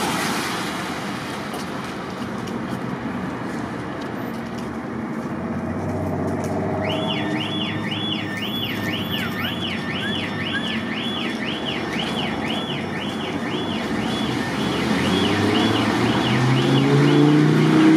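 Fire truck's electronic siren on a fast yelp, a rapid up-and-down wail about twice a second, starting about seven seconds in over city traffic. Near the end the truck's engine grows louder and rises in pitch as it approaches.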